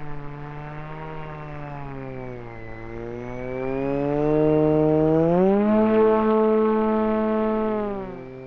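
Electric motor and propeller of the XK A180 F-22 Raptor RC jet whining with throttle changes. The pitch dips about three seconds in, then rises and grows louder about halfway through, and falls away near the end.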